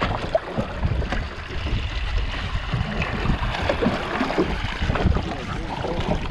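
Wind rumbling on the microphone, with water washing around a small boat and a few faint knocks and splashes.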